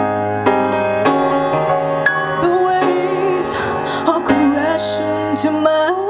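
A woman singing live over keyboard accompaniment: piano-like chords struck several times in the first two seconds, then a sustained, wavering sung line.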